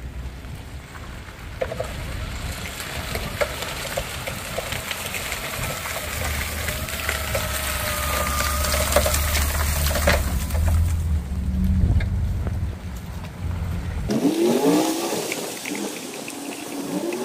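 Pickup truck with a tailgate salt spreader working across an ice-covered lot: the truck's engine running, a steady whine through the middle and a hiss with scattered ticks as salt is thrown onto the wet ice. About fourteen seconds in the low engine rumble drops away and a few rising whines follow.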